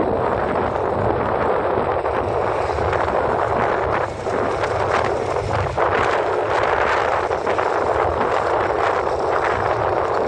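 Steady wind rushing over the microphone with vehicle road noise underneath, as heard while riding along a road, briefly easing about four seconds in.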